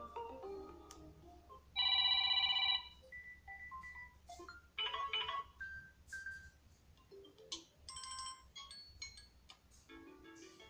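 Samsung Galaxy A20s phone speaker playing short previews of its built-in ringtones one after another, each cut off within a second or so as the next one is tapped. The loudest is a pulsing electronic beep about two seconds in.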